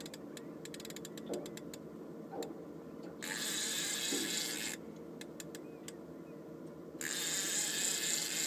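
Fishing reel's ratchet clicking as a strong coalfish pulls line off the reel: spaced clicks in the first two seconds and again between five and seven seconds in, with fast buzzing runs from about three to nearly five seconds in and again from seven seconds in, as the fish takes line.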